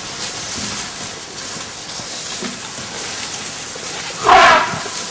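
An African elephant trumpets once, briefly and loudly, about four seconds in, over a steady hiss. The elephant is mock-charging.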